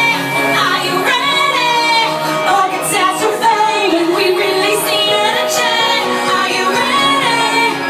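A woman singing into a microphone over loud pop backing music.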